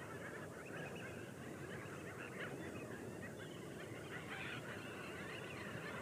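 A large flock of waterbirds on a lake calling continuously, many short overlapping calls from many birds at once.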